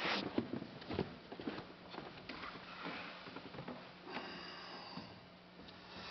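Faint handling noises before playing: scattered clicks and knocks and a sniff, over a steady low hum.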